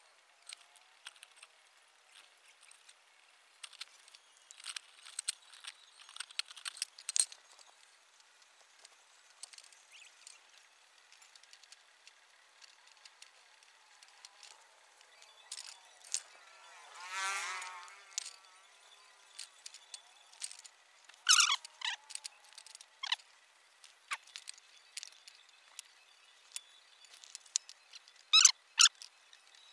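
Scattered light metallic clicks and ticks of wire spokes being worked into a motorbike wheel hub and rim, with one squeaky scrape lasting about a second halfway through and sharper clusters of clicks near the end.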